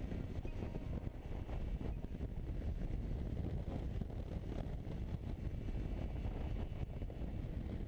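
Wind buffeting the microphone of a moving motorcycle, over the bike's low rumble.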